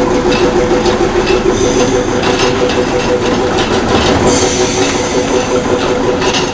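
Small diesel locomotive's engine running steadily with a droning tone as the locomotive moves slowly on the track, with repeated light clicks and rattles.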